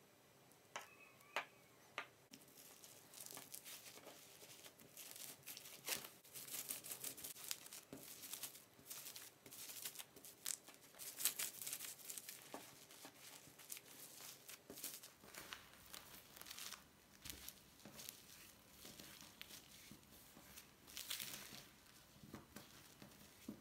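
Plastic cling film crinkling and rustling as it is rolled and pressed tight around a log of crumbly sweet mix. It opens with a few light clicks from a metal spoon pressing the mix, and the crinkling is densest in the middle, easing off in the second half with one more burst near the end.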